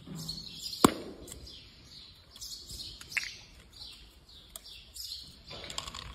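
Birds chirping repeatedly in the background, with a sharp click about a second in and a smaller one about three seconds in as a plastic pill bottle's cap and seal are worked open.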